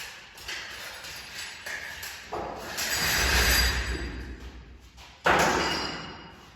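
Knocks and clatter of work, with a louder rattling rumble about two to four seconds in and a sharp bang about five seconds in that rings away.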